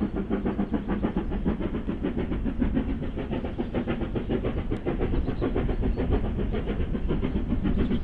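Steam locomotive working, with a fast, even beat that does not let up.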